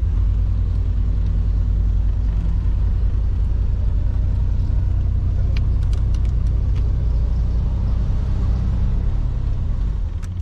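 Tow truck's engine running steadily with a low rumble. A few faint clicks come about halfway through.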